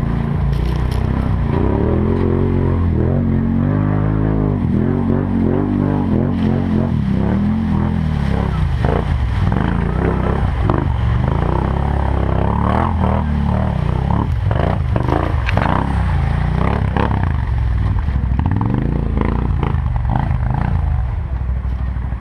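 4x4 ATV engine running and revving up and down as it is ridden, with frequent knocks from the machine over the ground.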